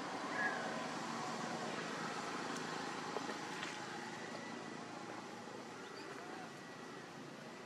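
Steady outdoor background rumble and hiss, with a brief high falling chirp about half a second in.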